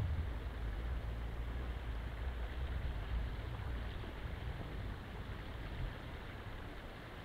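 Wind buffeting the microphone outdoors: an uneven low rumble that eases off toward the end, over a steady hiss.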